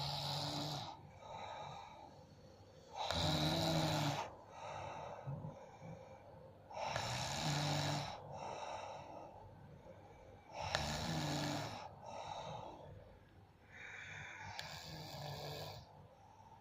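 A sleeping person snoring heavily: a loud, rough snore about every four seconds, with a softer breath between each, the last snore weaker.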